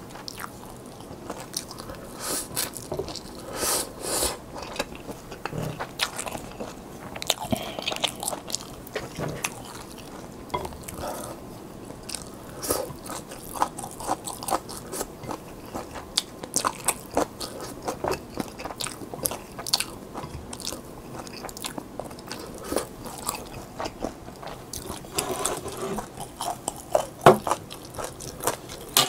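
A person chewing Peyoung yakisoba instant noodles close to the microphone, with many short, sharp clicks throughout.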